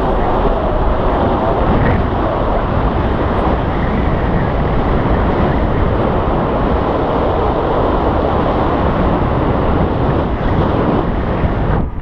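Loud, steady rush of wind buffeting an action camera's microphone as a tandem paraglider flies through the air.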